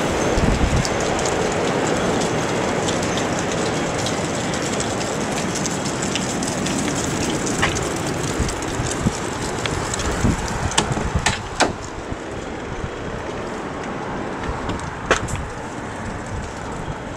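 The 1992 Spartan Gladiator fire engine's diesel engine running while it stands, a steady rumble with hiss. A few sharp clicks come in the second half.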